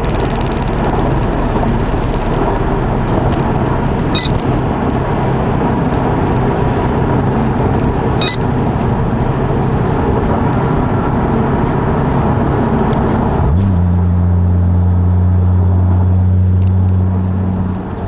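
Car engine and road noise heard from inside the cabin while cruising on a highway, with two short clicks a few seconds apart. About two-thirds of the way through it changes suddenly to a steady low drone.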